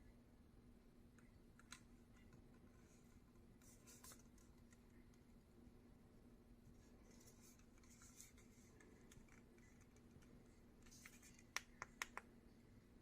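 Near silence: room tone with a faint steady hum and a few faint rustles, then a quick run of four small clicks near the end.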